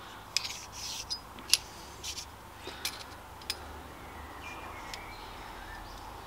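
A few light clicks and taps from digital calipers being handled and set against a small machined flywheel, scattered over the first few seconds, then faint room tone.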